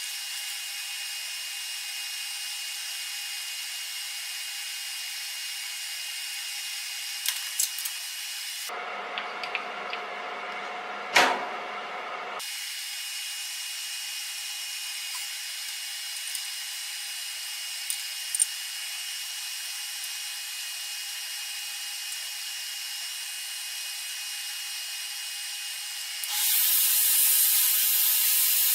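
A machine-shop power tool's motor runs with a steady, high whine, with a few light clicks. Partway through there is a brief, different stretch with one sharp click, and near the end the sound turns louder and noisier.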